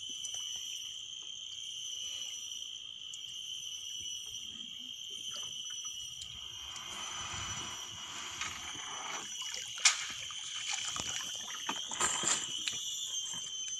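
Water splashing and dripping off a cast net as it is hauled up out of the river and into a wooden boat, heaviest in the middle and again near the end, with one sharp knock about ten seconds in. A steady high insect buzz runs underneath.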